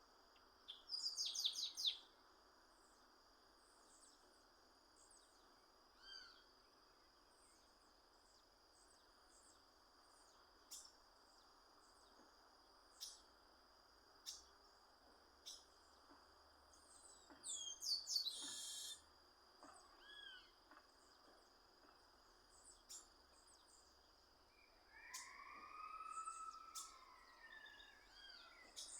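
Chestnut-capped blackbird (garibaldi) calling in scattered short bursts of chips and trills, louder about a second in and again past the middle, with lower arched whistles near the end.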